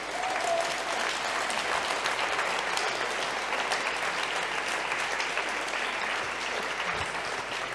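Audience applauding, a steady spread of clapping that eases slightly toward the end.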